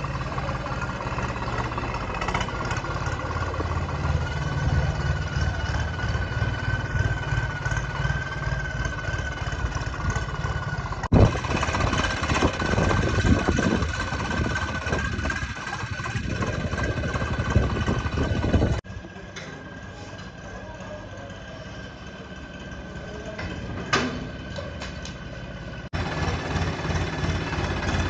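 Tractor diesel engine running steadily, with a held whine over the rumble. The sound changes abruptly three times as clips are cut together, and is quieter for several seconds in the last third.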